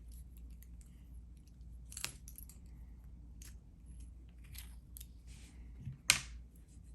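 Small metal lock parts clicking and tapping as a pin tumbler lock is taken apart, with scattered light ticks, a sharper click about two seconds in and a louder clack about six seconds in.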